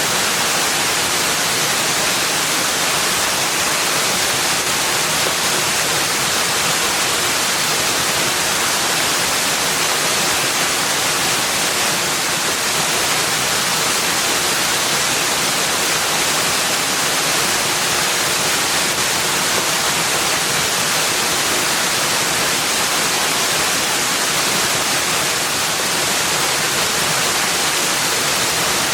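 Steady rushing water, an even, unbroken hiss that stays constant throughout.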